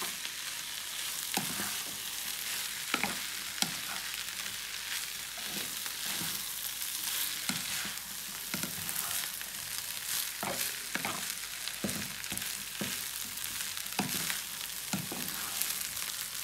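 Rice with mixed vegetables and shrimp sizzling in a hot frying pan while being stirred and tossed with a spatula: a steady frying hiss with irregular scrapes and knocks of the spatula against the pan.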